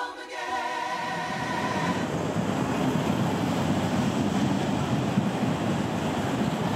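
Sung music fades out in the first two seconds. A freight train takes over, rolling past close by with a steady, heavy rumble.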